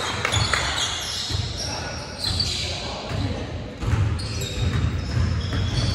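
Basketball game in a gym: a ball bouncing on the court in repeated low thuds, short high squeaks, and players' voices echoing in the hall.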